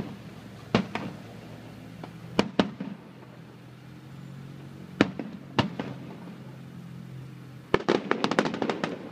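Aerial firework shells bursting: sharp single bangs every second or two, then a rapid volley of many crackling bangs near the end.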